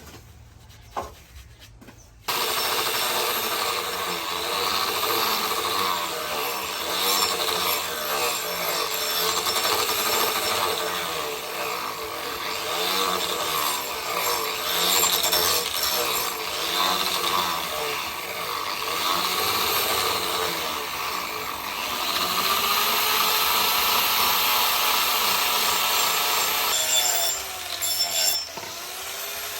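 A power tool grinding or sanding, a continuous rasping noise that starts abruptly about two seconds in and wavers as the work is moved against it.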